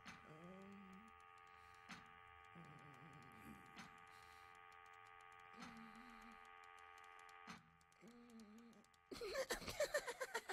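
Sound design of a strange machine's workings: a steady electric hum with soft clicks about every two seconds and faint short warbling tones. About nine seconds in, a sudden, much louder burst of rapid clattering and chirping breaks in.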